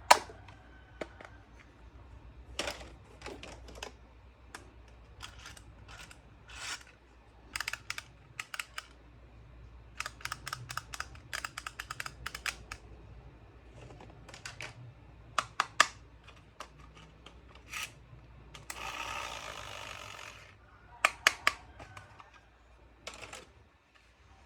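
Plastic toys being handled, giving a string of sharp clicks and taps, some in quick runs of several. About two-thirds of the way through comes a steady hiss lasting about two seconds.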